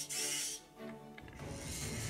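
Background music over the small electric motors of a 1/32 scale Siku John Deere 7280R RC tractor. A hissing whir from the front-loader motor lasts about half a second at the start. From a little past a second in comes the drive motor's lower whir as the tractor moves off.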